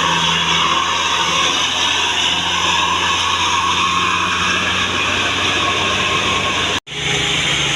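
Large tour bus running, with a steady engine drone and loud road noise. The sound cuts out for an instant near the end.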